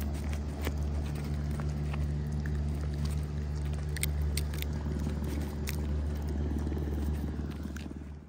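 Alpine marmots eating close to the microphone: scattered crunching clicks and crackles of chewing and pawing at a backpack over a steady low rumble, fading out at the end.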